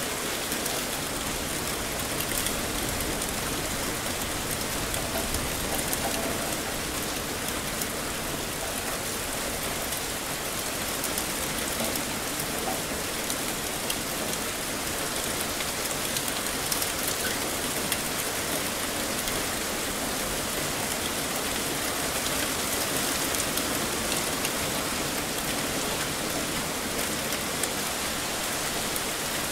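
Heavy rain falling steadily: an even hiss of dense drops, flecked with many small drop ticks.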